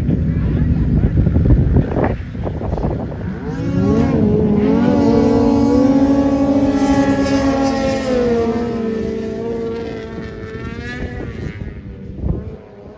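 Several racing snowmobiles launching together and accelerating hard, their engines climbing in pitch and then holding a high, steady note before fading away.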